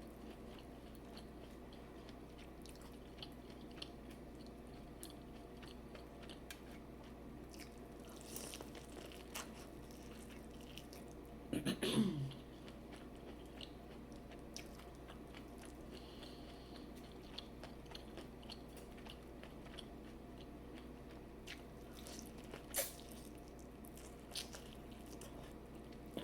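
A person eating seafood boil close to the microphone: quiet chewing and biting with scattered small clicks and crunches. A brief louder sound comes about halfway through.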